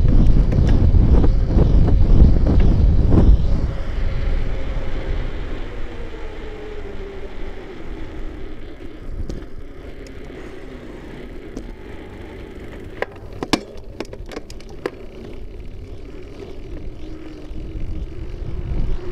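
Wind buffeting the microphone of a bicycle-mounted camera, with rumble from the ride, loud for the first few seconds and then easing. A faint steady hum of traffic runs underneath, and a few sharp clicks and rattles come a little past halfway.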